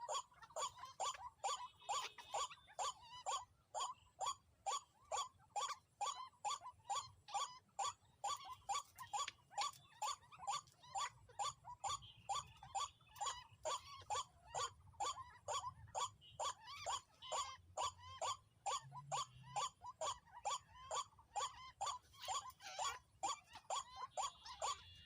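White-breasted waterhen (dahuk) calling: a steady, rapid string of short repeated notes, about two or three a second, each dropping slightly in pitch.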